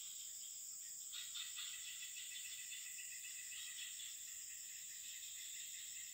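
Steady, high-pitched chorus of insects chirring in several layers, with a louder pulsing call joining about a second in.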